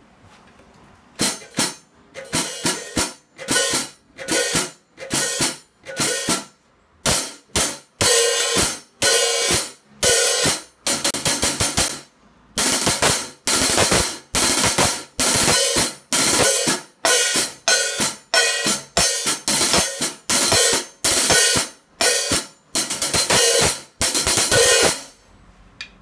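Hi-hat cymbals on a remote cable-operated hi-hat stand played with drumsticks in a rapid groove, alternately ringing open and choked shut. The pattern starts about a second in and stops just before the end.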